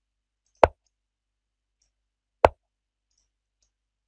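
Two wooden 'plop' move sounds from the online chess board, about two seconds apart, as one move is answered by the next.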